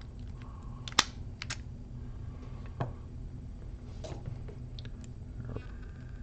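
Scattered small clicks and taps from a padlock and metal lock picks being handled, the sharpest about a second in, over a steady low hum.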